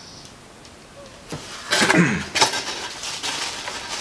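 Rustling and crinkling of packaging as items are handled, loudest about two seconds in, with a few short crackles after.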